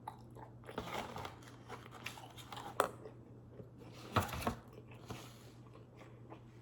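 Close-miked eating and food-handling noises: scattered crunches and clicks, the loudest about three and four seconds in, over a steady low hum.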